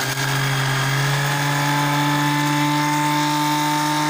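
Electric blender motor running at a steady speed, mixing eggs, vinegar and seasonings in its jug for mayonnaise. A higher whine joins in about a second in.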